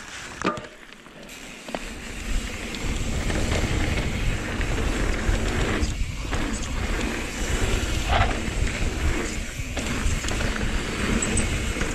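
Wind buffeting the microphone over the rattle and rolling of mountain-bike tyres on a dirt trail. It builds over the first two seconds as the bike gets under way, then holds steady.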